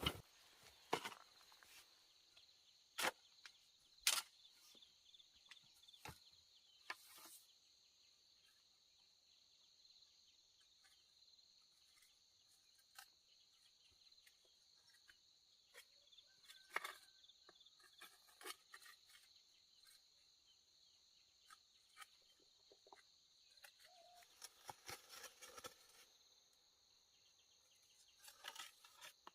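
Faint steady high-pitched insect drone, with scattered sharp clicks and knocks: a few louder ones in the first several seconds and a cluster near the end.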